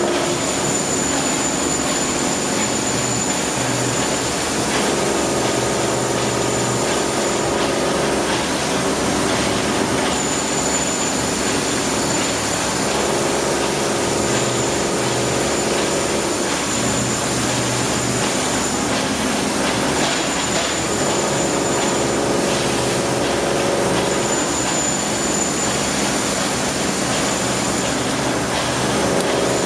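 Bridge-type die-sinking EDM machine at work: a steady hiss of spark erosion and dielectric flushing, with a humming tone that comes and goes every few seconds and a high thin whine that switches on and off.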